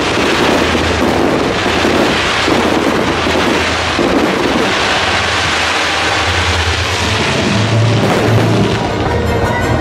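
Fireworks barrage: many comets and shells launching and bursting at once, their crackling and bangs merging into one loud, continuous wash of noise, with a low musical soundtrack underneath.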